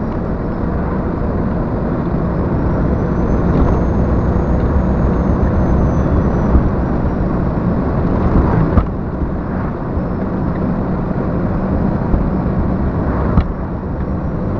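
Heavy truck engine and road noise heard inside the cab while cruising: a steady drone. Two short sharp clicks come about nine and thirteen seconds in.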